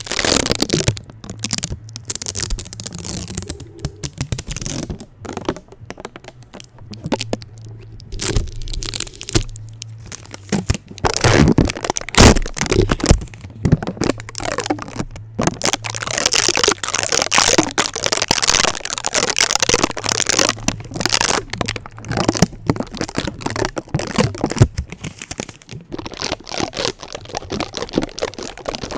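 Tape stuck over a microphone being rubbed, pressed and peeled in fast, rough strokes: dense crackling, crinkling and tearing right on the mic, with many sharp clicks.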